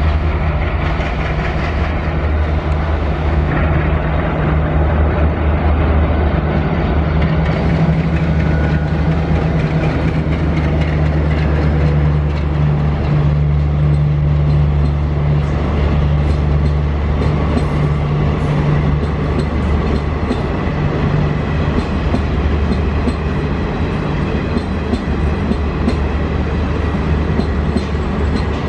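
A WDM-3A ALCO diesel locomotive, with its 16-cylinder ALCO 251 engine, passes with a steady low engine drone that weakens after about twenty seconds. The luxury coaches behind it roll by with a clickety-clack of wheels over the rail joints.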